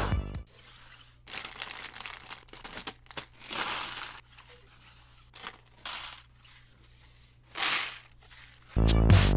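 Plastic crinkling and tearing in short, irregular bursts, with a few light clicks.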